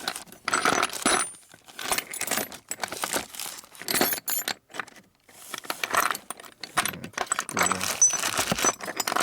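Small loose metal hardware (nuts, bolts and studs) jingling and clattering as a box of parts is rummaged through by hand, in bursts with a short lull about halfway.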